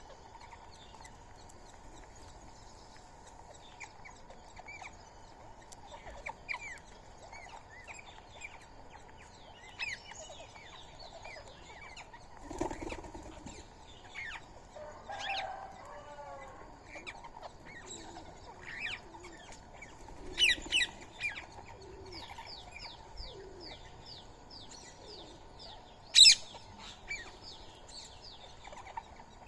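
Indian ringneck parrots and other birds calling at a feeding spot: a run of short chirps throughout, with loud harsh screeches about two-thirds of the way in and again near the end, and wing flaps.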